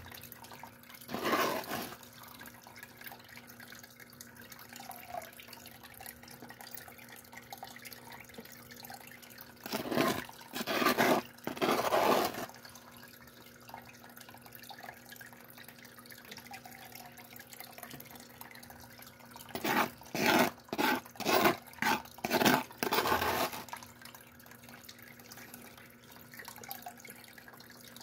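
Water trickling steadily through a small electric recirculating toolbox sluice, over a faint steady pump hum. A metal scoop scrapes and tips gravel from a plastic gold pan into the water in a few louder bursts, with a quick run of short scrapes about two-thirds of the way in.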